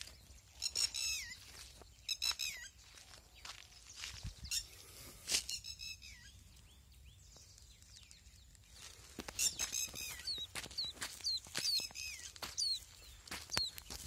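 Downy plover chick peeping: thin, high calls, each falling in pitch, in short clusters. After a quieter stretch around the middle, a run of about three calls a second follows.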